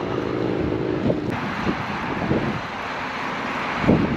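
Wind buffeting the microphone over the low hum of a motor vehicle's engine, with the hiss of the wind growing stronger about a second in.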